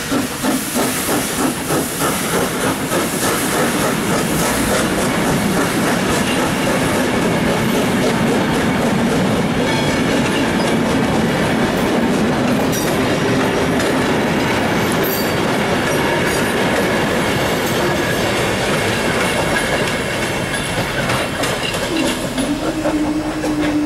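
GNR(I) V Class 4-4-0 compound steam locomotive No. 85 Merlin pulling out, its exhaust beating evenly at first, then its coaches rolling past with a clickety-clack from the wheels over the rail joints. A steady low tone starts near the end.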